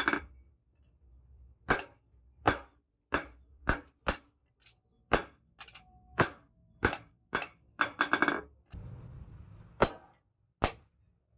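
Hand hammer striking a leaf-spring steel knife blade on a steel post anvil: about a dozen sharp metallic blows, irregular and roughly half a second to a second apart, one of them leaving a short ring.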